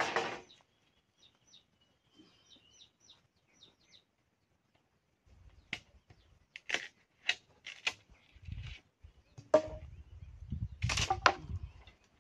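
Bamboo pole being split lengthwise by hand, its fibres cracking and snapping as the split is forced open: one loud crack at the start, then a run of sharp snaps from about six seconds in. Faint bird chirps in the quiet stretch between.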